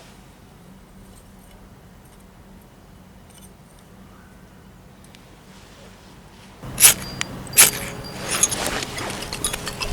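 Quiet for about six and a half seconds, then two sharp loud clicks and a run of lighter clattering and jingling from small metal objects being handled.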